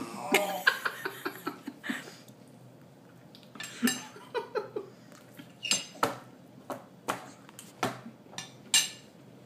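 Baby's hands tapping and slapping on a plastic high-chair tray: scattered sharp clicks and knocks at uneven intervals, with a few short vocal sounds in the first two seconds.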